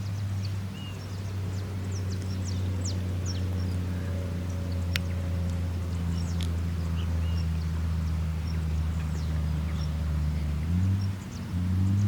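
Cessna 152's four-cylinder Lycoming engine and propeller droning steadily and slowly growing louder. Near the end it dips briefly, then its note steps up and comes back louder. Scattered short high chirps sound over the drone.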